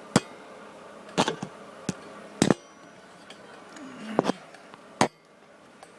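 Hands working on the brake light switch wiring under the dashboard: a handful of sharp, scattered plastic clicks and knocks.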